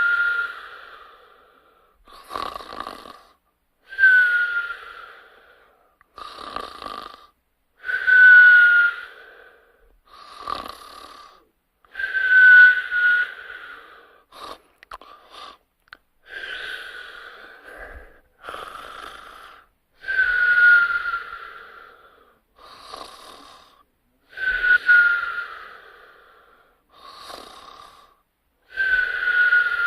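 Whistling snores: each louder breath, about every four seconds, carries a thin whistle that dips slightly in pitch, with a softer, rasping breath in between.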